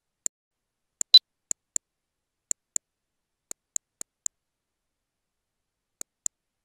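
Sharp computer mouse clicks on a silent background, mostly in quick pairs about a quarter second apart, thirteen clicks in all. The loudest comes just after a second in.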